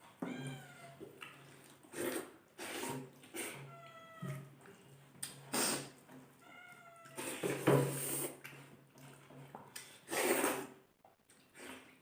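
A cat meowing three times in short, downward-sliding calls. Loud short bursts of noise fall between the meows.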